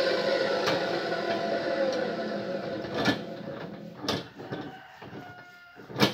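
NRT Pro 14-inch abrasive cut-off saw spinning down after a cut, its whir fading over several seconds. Metal clanks from the steel workpiece and the saw's vise come at about three and four seconds in, and a sharp clank, the loudest sound, comes near the end.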